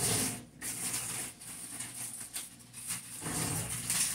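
Crinkly rustling with small irregular clicks and knocks as aluminium foil is fetched and handled.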